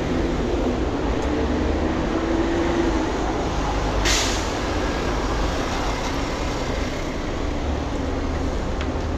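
Street traffic with buses running: a steady low engine rumble, and a short burst of hiss about four seconds in.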